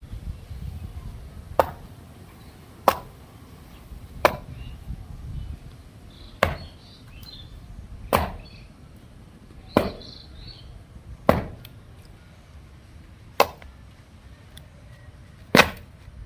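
A series of nine sharp chopping knocks, one every one to two seconds, each ending quickly; the last is the loudest. A low rumble runs underneath.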